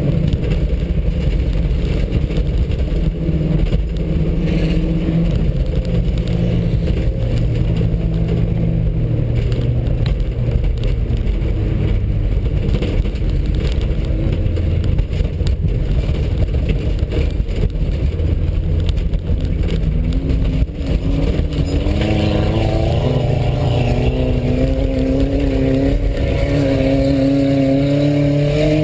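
VW Passat 2.0-litre four-cylinder engine heard from inside the cabin, running hard at race speed with rough rumble from the loose dirt surface. About 22 seconds in, the engine note climbs and steps up several times as the car accelerates through the gears.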